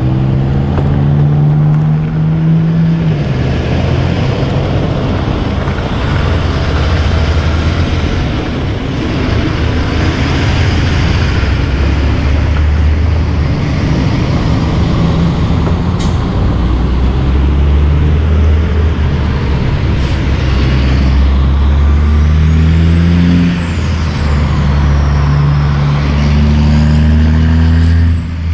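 Heavy diesel semi trucks passing close by with other road traffic, their engines pulling up in pitch through the gears several times.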